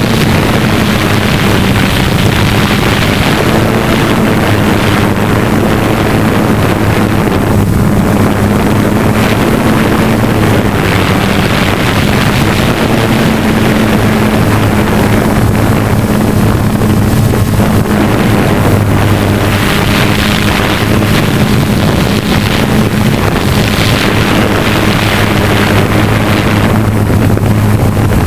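Hexacopter's electric motors and propellers running steadily while hovering, heard close up from on board, with a steady hum whose pitch wavers slightly and wind noise on the microphone.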